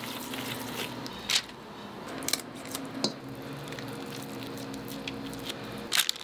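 Gloved hands squishing and packing raw ground meat around bones, with a few sharp clicks and taps, the loudest near the end, over a faint steady hum.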